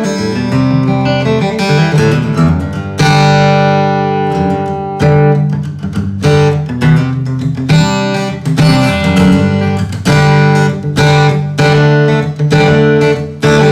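Hans Bygone DR steel-string acoustic guitar, with an Adirondack red spruce top, Indian rosewood back and sides, and phosphor bronze strings, playing chords in rhythmic strokes. Some chords are left ringing, a long one about three seconds in.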